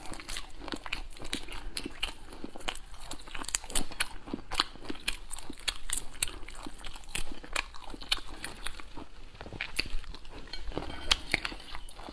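Shells of boiled tiger prawns being cracked and peeled off by hand, a close, irregular crackling and crinkling, mixed with chewing.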